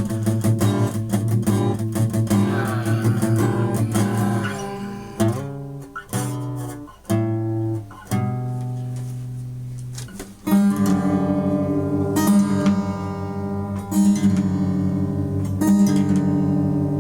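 Acoustic guitar being strummed: fast chords at first, a few separate chords left to ring around the middle, then steady strumming again from about ten seconds in.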